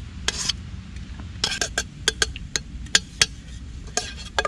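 Titanium camp cook pot being handled: about a dozen sharp metallic clinks and knocks, some ringing briefly.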